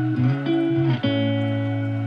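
Background music: a guitar playing held notes that change every half second to a second.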